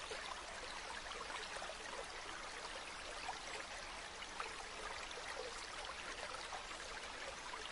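Faint, steady hiss like a trickling stream, with scattered small ticks.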